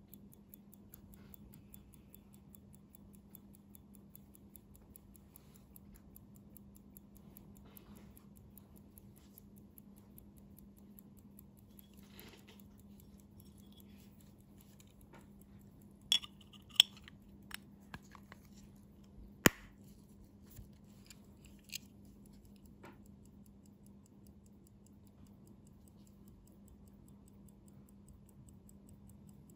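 Mechanical hand-wound pocket watch ticking fast and evenly, a British military G.S.T.P. Broad Arrow watch whose movement is running well. In the middle come a few sharp clicks and knocks from the watch being handled.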